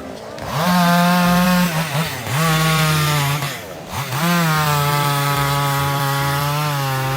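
A small high-revving engine running hard. Its pitch sags briefly near two seconds in and falls away almost to nothing around three and a half seconds in, then revs back up and holds steady.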